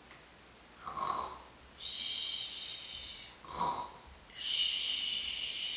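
A woman imitating snoring, twice: each time a short throaty breath in followed by a long hissing, whistling breath out.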